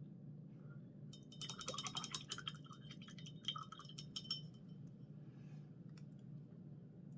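Paintbrush rinsed in a glass water jar, clinking rapidly against the glass for about three seconds, starting about a second in.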